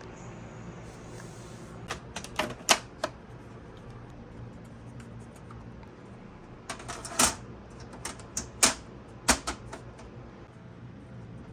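Sharp clicks and taps of PC cable connectors being plugged in and snapped into place, in a short run about two seconds in and another from about seven to nine and a half seconds, over a steady low hum.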